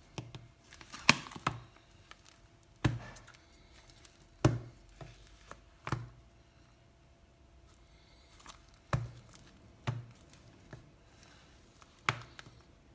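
A metal spoon stirring and beating soft ice cream in a plastic tub, the spoon and tub knocking sharply now and then, every second or two, with softer scraping between.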